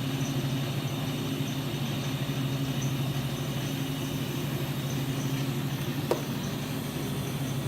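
Steady low machine hum with a single sharp click about six seconds in.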